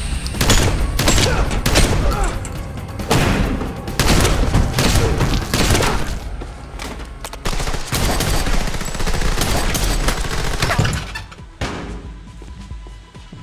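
Gunfire in a film fight scene: a rapid run of shotgun and gun blasts, one after another, which stops about eleven seconds in and leaves a quieter background.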